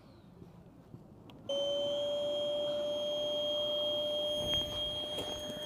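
Electric air pump switching on with a click about a second and a half in, then running steadily with a high whine over its motor hum as it pumps air into an inflatable air tent through a hose.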